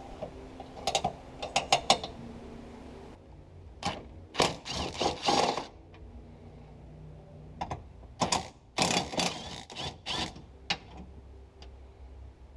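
Clicking and metallic rattling in three short bursts, ratchet-like, from hand work on a car's seat belt height adjuster mechanism as it is taken off the pillar.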